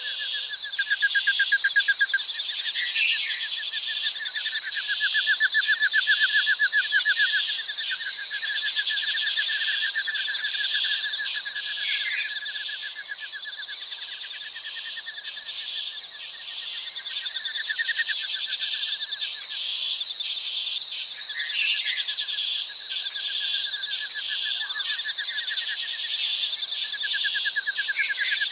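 Jungle ambience: a dense, steady chorus of rapid trilling calls at several pitches, the lowest trill swelling loudest a second or two in and again around six seconds in. Occasional short bird chirps sound over the chorus.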